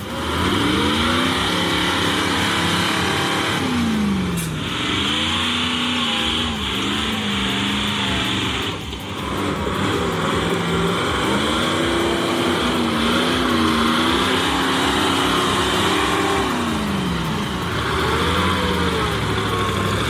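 Ural logging truck engine working under load, its pitch repeatedly climbing and falling as it is revved, over a steady rushing noise.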